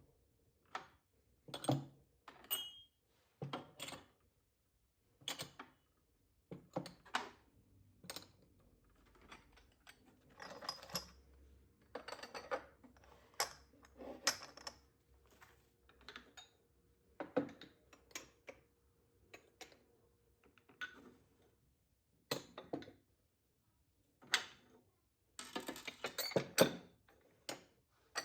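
Household items being handled and set down by hand: irregular clicks, taps and knocks, with a couple of short stretches of rustling.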